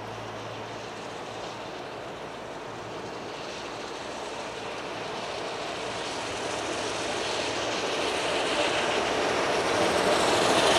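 Double-headed steam locomotives hauling a train approach, their working sound growing steadily louder.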